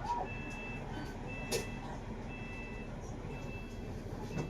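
An electronic warning beeper sounds a single high tone about once a second, five times, over the steady low hum of a bus's running engine. There is a short knock about a second and a half in.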